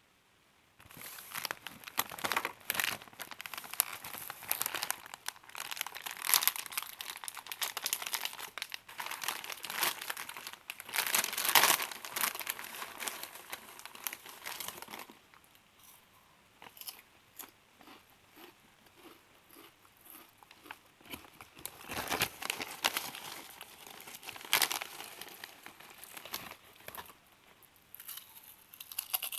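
Crinkly potato chip bag being handled and opened: dense crackling and crinkling for about fifteen seconds, then sparser, quieter rustles with a couple of louder crackles later on.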